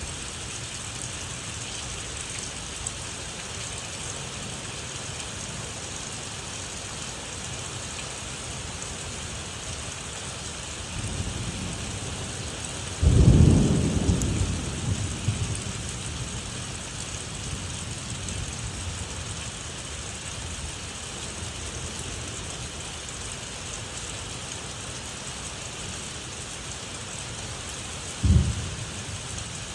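Thunderstorm: steady rain hissing throughout, with a low rumble that builds into a loud thunderclap about halfway through and rolls away over several seconds, and a second, shorter low boom of thunder near the end.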